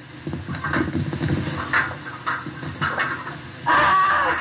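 A series of knocks and clatter over a low rumble, then a short loud shout near the end.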